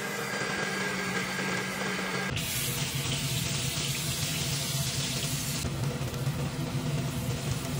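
Panasonic MX-SM1031 blender motor running steadily as it purees fried chillies and shallots into a liquid paste. About two seconds in, this gives way to a steady hiss: the blended paste sizzling as it hits hot oil in a wok and begins to fry.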